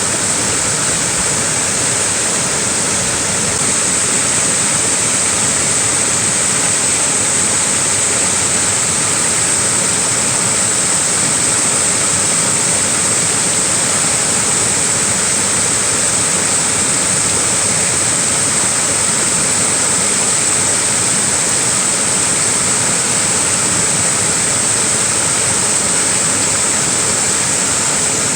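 Small waterfall: a steady, unbroken rush of falling water.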